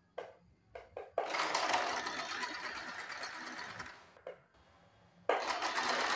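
Compact domestic sewing machine stitching a straight seam through fabric: a few short bursts of stitches at first, then a run of about three seconds, one more short burst, and another run starting near the end.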